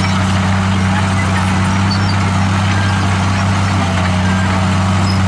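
Komatsu D63E crawler bulldozer's diesel engine running at a steady, unchanging pitch while the machine pushes dirt and rock with its blade.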